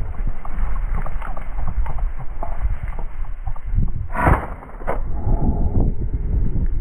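Wind buffeting the microphone over the constant rustle of tall dry grass being pushed through on foot. About four seconds in comes one sharp, loud knock, then a lighter one about half a second later.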